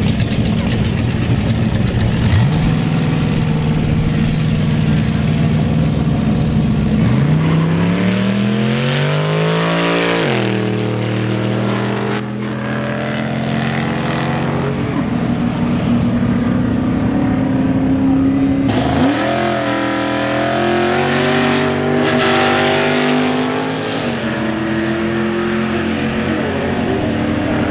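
Drag-racing cars launching and accelerating hard down the strip. The engine note climbs steeply and drops away sharply as the cars pass, about ten seconds in. A second run of climbing engine note starts about nineteen seconds in and fades a few seconds later.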